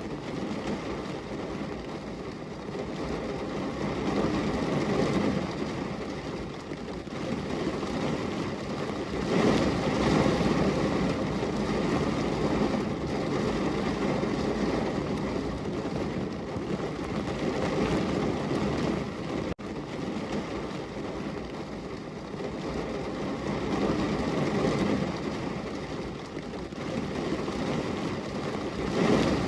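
Heavy rain pouring onto a window, a steady downpour that swells and eases in waves, with a momentary break about two-thirds of the way through.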